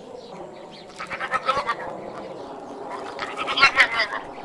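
An animal calling twice, once about a second in and again, louder, around three to four seconds in.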